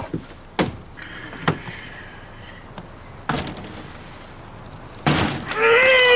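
A hammer knocking at a nail, about half a dozen sharp blows at uneven spacing. Near the end comes a man's loud cry of pain, rising then falling, after the hammer misses the nail and hits his hand.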